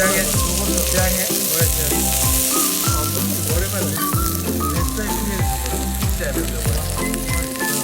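Food sizzling and frying in a pan, with background music that has a steady beat and bass line.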